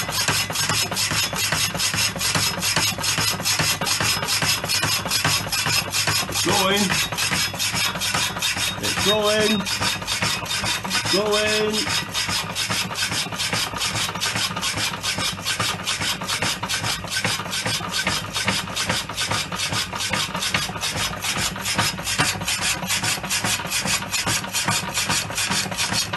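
Manchester Rapidor vintage power hacksaw cutting steel bar, its blade rasping back and forth in a steady, even rhythm over a low hum. Three short squeaks come in the first half.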